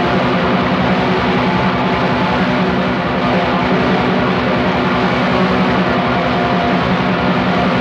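Raw black metal: a dense, unbroken wall of distorted guitar and drums at a steady loudness.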